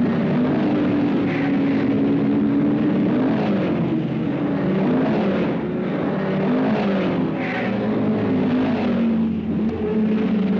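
Racing saloon car engines running hard as several cars pass one after another, the overlapping engine notes rising and falling in pitch as they take a corner.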